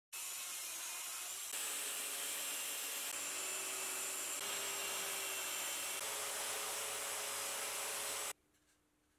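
Electric belt sander running with a plywood workpiece pressed against its belt, sanding it to shape; the sound cuts off suddenly near the end.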